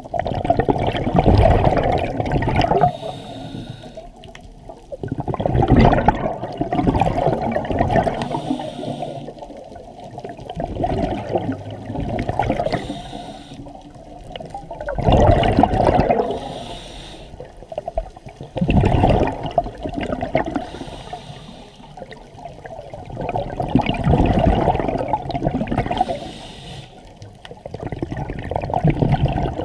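Scuba diver breathing through a regulator underwater. A bubbling rush of exhaled air comes about every four seconds, with a short hiss of inhaling between.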